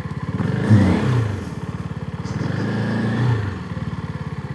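CFMoto 250NK's single-cylinder engine running while the motorcycle is ridden, the revs rising and falling twice.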